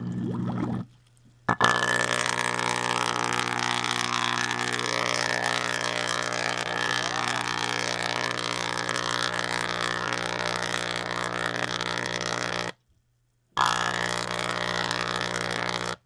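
Microwave oven transformer at about 1200 volts driving an arc between wires under water, giving a loud, steady electrical buzz with a strong mains hum. The power is cut twice: briefly just after it starts, coming back on with a click about a second and a half in, and again for under a second near the end.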